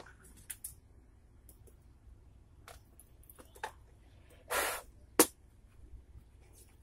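Light clicks and rubbing from gloved hands handling a 3D-printed resin bullet mould and its sprue lid. About four and a half seconds in comes a half-second scrape, followed at once by one sharp click.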